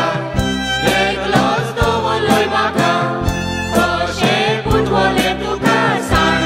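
Music: a song with voices singing over a steady beat of about two strikes a second and sustained low notes.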